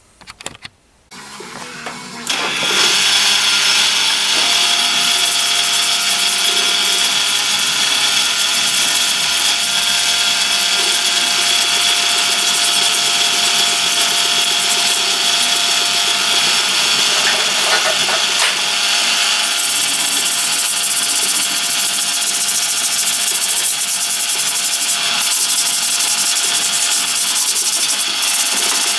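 Parts washer running steadily while the cast-iron lathe bed is scrubbed in it, a continuous machine noise with a constant whine that starts about two seconds in.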